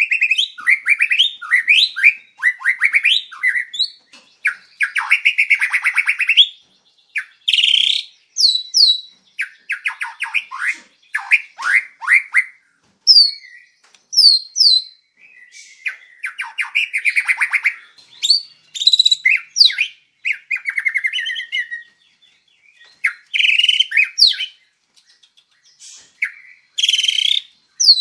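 White-rumped shama (murai batu) in full song. Loud, varied phrases of fast trills, sweeping whistles and sharp downward-slurred notes come in bursts a second or two long, with short pauses between them.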